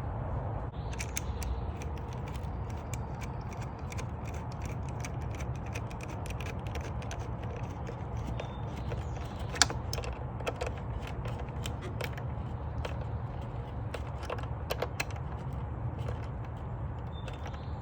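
Irregular small clicks and ticks of a hand tool working metal as the air-intake hose clamp is tightened, with one sharper click about halfway through.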